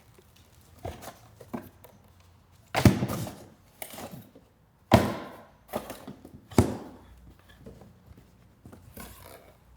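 A chainsaw being unboxed: cardboard packaging handled, with a string of knocks and three loud thunks about three, five and six and a half seconds in.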